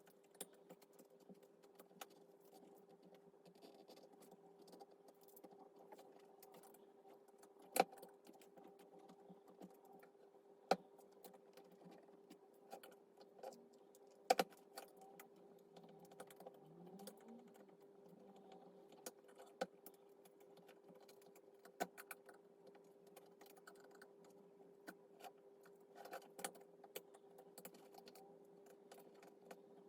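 Faint scattered clicks and taps of a thin knife and plastic prying tools working at a Samsung Galaxy S8's glued back panel, with a few louder ticks among them, over a steady hum.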